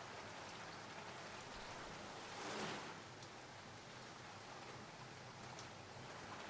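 Steady rainfall, a faint even hiss of rain that swells briefly about two and a half seconds in.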